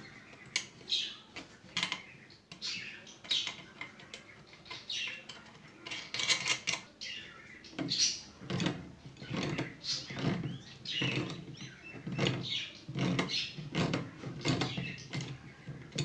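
Cutting pliers clicking and scraping against a metal nut as it is turned and tightened on a bolt, in short irregular strokes. Voices can be heard in the background.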